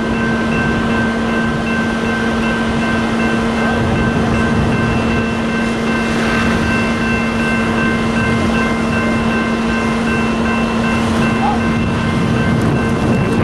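A heavy engine running steadily with a constant whine, over an even rushing hiss.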